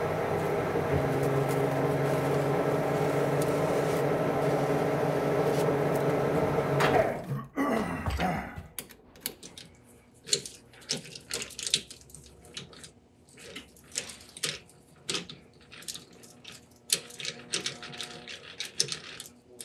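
Metal lathe spindle running steadily for about seven seconds, then winding down and stopping. This is followed by scattered light metallic clicks and taps as the chuck is handled by hand.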